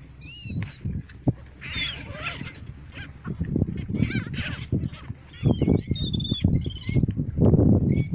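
A flock of gulls calling: short, high, squealing calls, scattered at first and then many overlapping from about halfway through, over a low rumbling noise.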